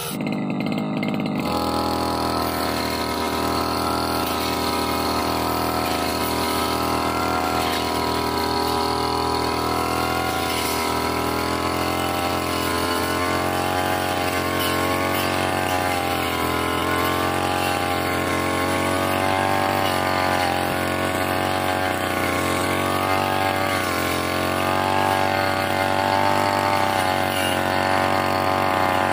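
Brush cutter engine running at working speed while its circular blade cuts through dense grass and saplings, the engine pitch wavering up and down under the changing load.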